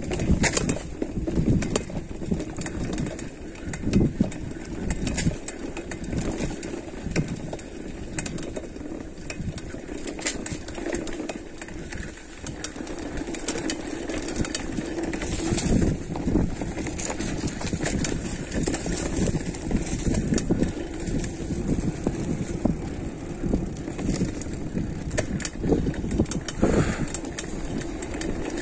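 Mountain bike rolling down a rough dirt trail: steady tyre noise with frequent rattling knocks as the bike goes over bumps.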